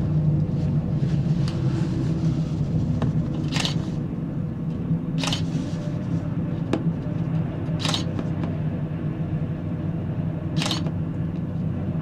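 Steady low rumble and hum of a Panoramic Mont Blanc gondola cabin running along its rope at full speed, heard from inside the cabin. Brief sharp ticks come every couple of seconds.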